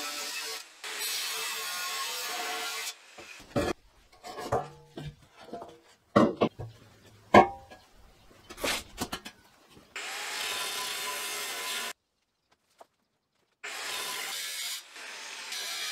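Angle grinder with a cut-off disc cutting through thick rusty steel plate, a steady hissing grind. In the middle it stops for a run of loud metal clanks and knocks as the heavy steel pieces are handled, then the grinding starts again in two bursts near the end.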